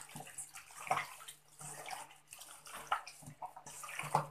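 Raw chicken liver and chicken pieces squelching wetly as a hand mixes them in their marinade in a steel bowl. The sound comes in irregular bursts, with a few sharper slaps.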